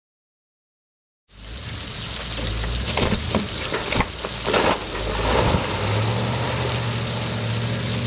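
A steam sawmill's headsaw cutting a log on the moving carriage, starting abruptly about a second in. It is a loud rushing noise with several sharp knocks in the middle, settling into a steady low hum near the end.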